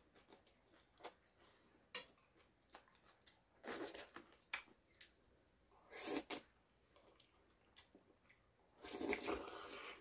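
A person eating a juicy salad of sliced tomato and greens with chopsticks: a few short, soft slurps as pieces are drawn into the mouth, about four seconds, six seconds and nine seconds in, with quiet chewing and small clicks in between.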